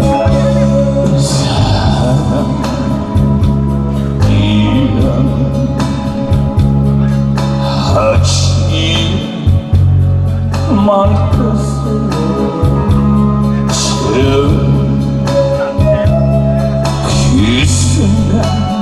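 Loud backing music for a trot song, its instrumental intro: a lead melody, guitar-like, over a steady drum beat and bass.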